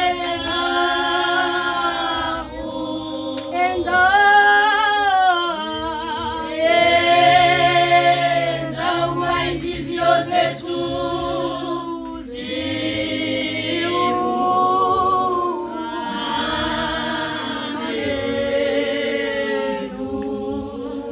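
A church congregation singing a hymn a cappella, several voices in harmony on long held notes, with a few sharp strikes near the middle.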